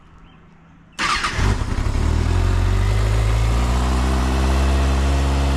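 Motorcycle engine cutting in suddenly about a second in, then running steadily.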